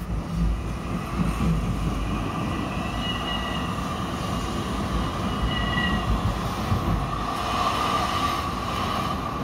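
Ride noise inside a moving tram: a steady rumble of the wheels on the rails under a constant hum, with two faint high squeals about three and five and a half seconds in.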